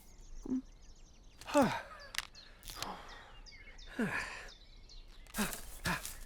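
A character's voice making several short sighs or groans, each falling in pitch, the first the loudest.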